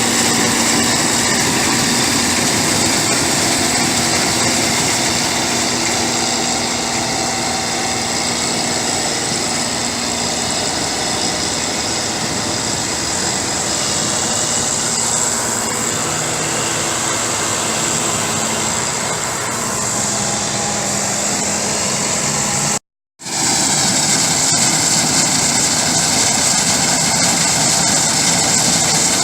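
Farm machinery engine running steadily under load, with a constant high whine over it. The sound cuts out completely for a moment about three quarters of the way through, then carries on as before.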